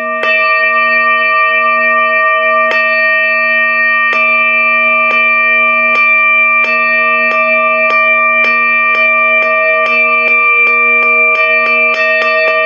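Buddhist temple bell (chuông) ringing on, with the wooden fish (mõ) knocked over it in strikes that start slow and speed up steadily to several a second: the accelerating roll that opens a chanting session.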